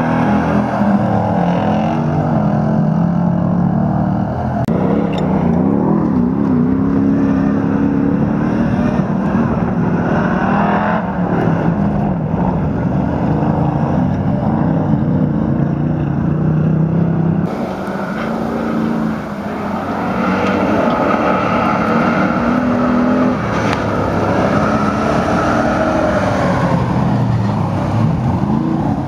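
Engines of old racing trucks revving hard, their pitch rising and falling as the trucks accelerate and slow around a dirt autocross track. The sound changes abruptly about two thirds of the way through.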